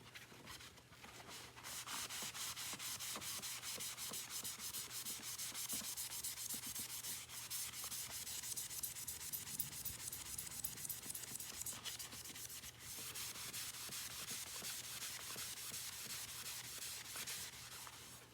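Rapid back-and-forth scrubbing strokes on the vacuum's grimy surface, working off built-up dirt, with a short break about 13 seconds in.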